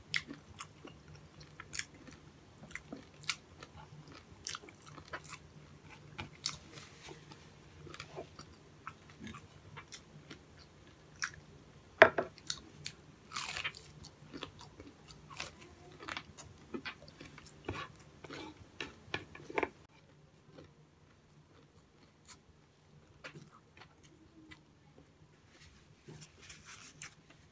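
Close-miked mouth sounds of a person biting and chewing a breaded, deep-fried pork chop: crisp crunches and smacks, with the loudest crunchy bite about twelve seconds in. For the last several seconds the crunching gives way to sparser, quieter chewing.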